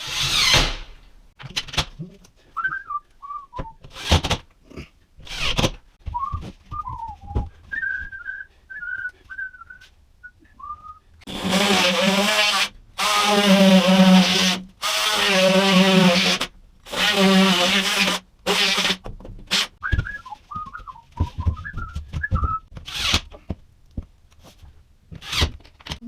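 A person whistling a tune in short phrases while working, with scattered knocks and clatter. Midway through come five loud, evenly spaced buzzing bursts of about a second each, from an unidentified tool or machine.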